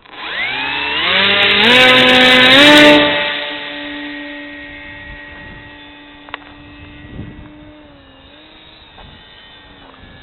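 Electric motor and propeller of a foam RC airplane spooling up in rising steps to full throttle, loudest about two to three seconds in, then holding a steady whine that fades away.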